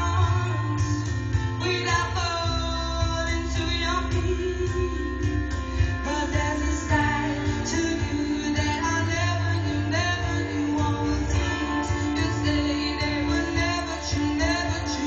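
Live concert music played back through home hi-fi speakers (Bower & Wilkins Solid monitors and Bose cube speakers) and picked up in the room: a woman singing over guitar, drums and heavy bass.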